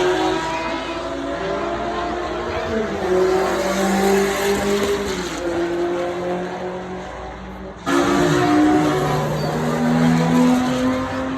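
Supercar engine running hard, its note climbing and dropping in steps like gear changes. An abrupt cut about eight seconds in switches to another loud engine passage.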